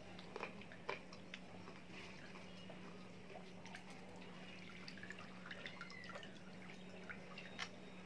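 Faint wet clicks and crunches of fuchka (pani puri) being eaten, a few louder ones near the start and near the end, over a steady low hum.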